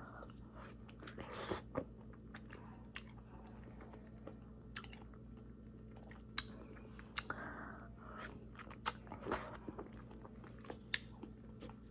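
A person chewing and biting pear halves topped with cottage cheese, close to the microphone: faint, irregular wet mouth clicks and smacks.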